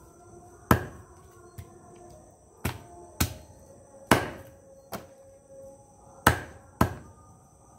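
A blade chopping raw chicken against a wooden log block: about eight sharp chops at irregular intervals, six of them loud.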